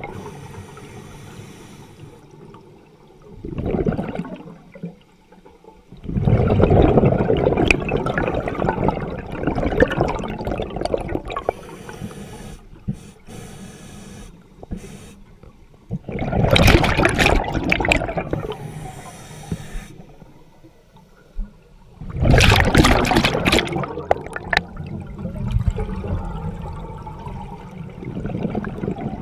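Scuba diver breathing through a regulator underwater: several long bursts of rushing, bubbling exhalation a few seconds apart, with quieter hiss in between.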